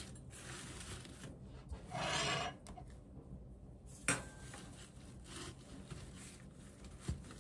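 Rustling and rubbing of rose stems and leaves as the bouquet is pushed into place in a glass vase, with a louder rustle about two seconds in and a single sharp click about four seconds in.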